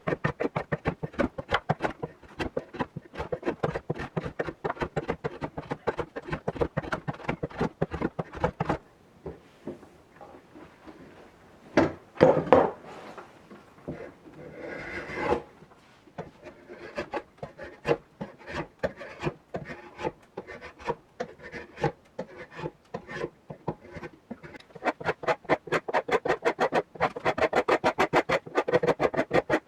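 Rapid back-and-forth hand scraping strokes on the rusty, hand-forged iron head of a pick/hoe, about four to five strokes a second, as rust is worked off by hand. The strokes stop about nine seconds in, a few louder single scrapes follow, and the steady stroking starts again at about sixteen seconds.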